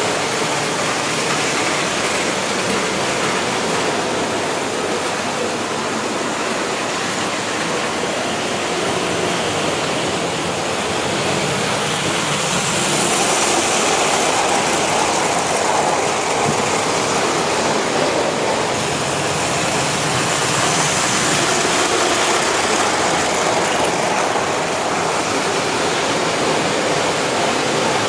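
S-gauge model trains running on the layout's track: a steady rushing rumble of wheels and motors, a little louder from about twelve seconds in as the cars pass close by.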